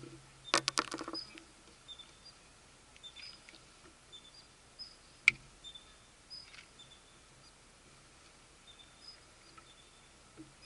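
Small wildlife calls: a quick chattering run of about seven sharp notes near the start, and faint high chirps scattered throughout. One sharp click about five seconds in, like a small hard treat landing on the pavement.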